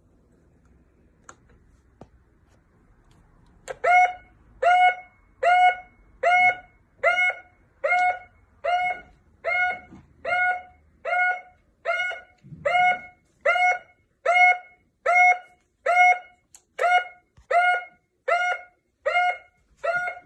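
Electronic alarm siren sounding a steady string of short, high beeps, a little more than one a second, starting about four seconds in.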